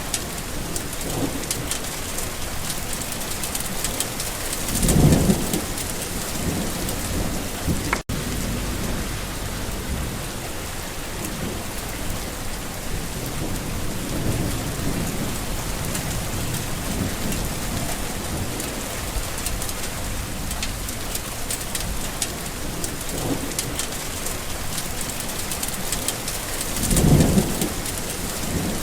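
Steady rain falling on surfaces, with two low rolls of distant thunder, one about five seconds in and one near the end.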